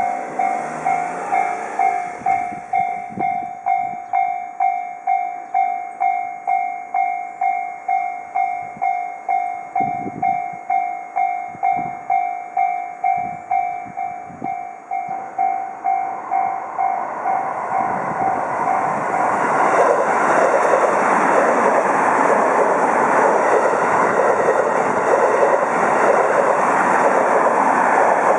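Japanese railway level-crossing warning bell dinging repeatedly, about one and a half strikes a second. A train then passes with a rising, loud rush of running noise, and the bell stops about two-thirds of the way through.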